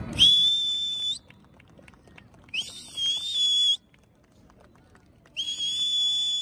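Three loud, shrill whistles, each about a second long and spaced a couple of seconds apart; the middle one wavers in pitch.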